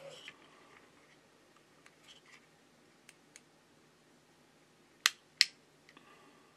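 Small plastic power-up box wired to an opened iPhone 11 being handled: faint taps and ticks, then two sharp clicks about five seconds in, a third of a second apart, as its button is pressed and the phone board starts drawing current from the lab supply.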